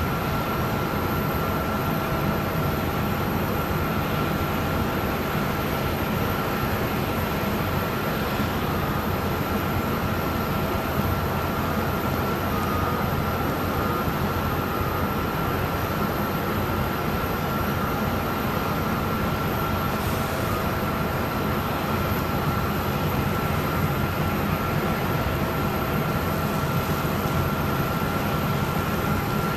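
De-icing truck running on the apron, its engine and pump driving a spray of de-icing fluid onto an Airbus A320's wing: a steady low drone with a constant high-pitched whine over it.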